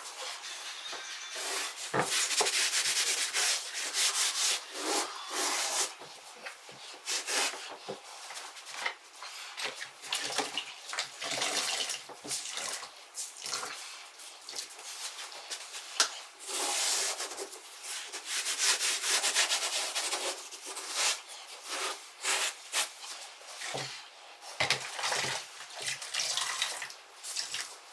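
Damp cleaning cloth wiping grout residue off freshly grouted tiles in irregular rubbing strokes, with a few light knocks.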